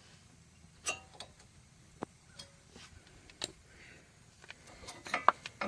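Scattered light metallic clicks and clinks of brake pads being worked out of the caliper bracket, with a quicker cluster near the end.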